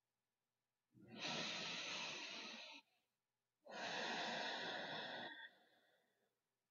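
A woman's slow, deep breath, audible into a close microphone: a long drawn-in breath of about two seconds, a short pause, then a long breath out of about the same length.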